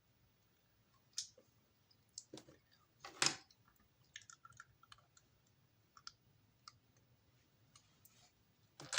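Plastic Lego pieces being handled, clicking and knocking together: scattered short sharp clicks, the loudest about three seconds in.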